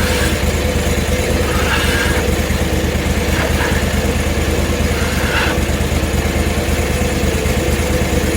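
Portable bandsaw sawmill's gas engine idling steadily, with a few short scrapes over it as sawdust is scraped off the sawn maple face.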